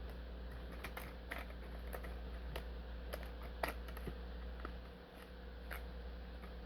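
Scattered light clicks and taps from handling cut-open plastic blister packaging, over a steady low hum.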